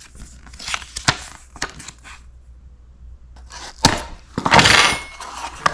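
Light clicks of small pieces being handled, then about four seconds in a sharp snap and a loud half-second tearing scrape as a small cardboard blind box is slit open with a metal tool.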